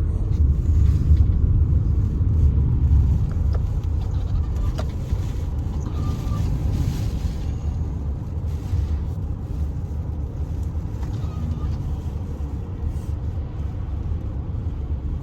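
Typhoon wind buffeting the microphone: a loud, uneven low rumble that is strongest in the first few seconds.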